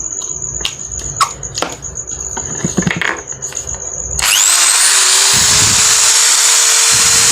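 Makita electric drill being tested after repair: a few handling clicks and knocks, then about four seconds in the motor switches on and runs at full speed. Its whine rises briefly as it spins up, then holds steady. It runs normally and fast, no longer growling, after its heat-damaged carbon brush spring was dealt with.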